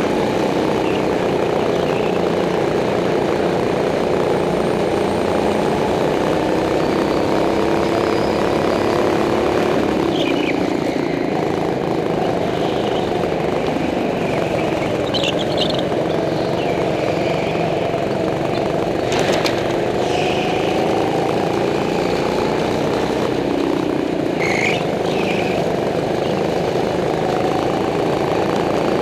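Go-kart engine running under the driver, its pitch rising and falling with throttle through the corners of a concrete track. A few short high squeals and one sharp click come through over it.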